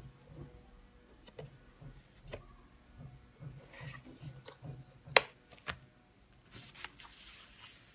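Cardstock paper rustling and tapping as a handmade paper box is handled, with light clicks throughout and one sharp click about five seconds in, around when the box's lid is lifted off.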